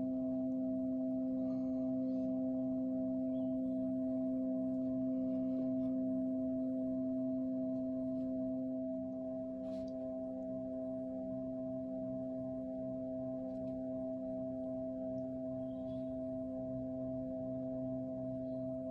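Epson V700 flatbed scanner running a preview scan, its scan-head motor giving a steady, even hum of several held tones, a little quieter about halfway through.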